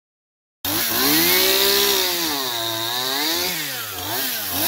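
Chainsaw cutting through a log, starting about half a second in; its pitch sags in the middle of the cut and rises again near the end.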